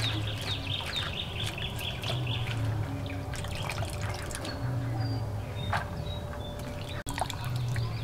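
Water splashing and dripping in a steel bowl as a hand stirs and lifts wet chopped banana-stem pieces, with small scattered clicks and splashes.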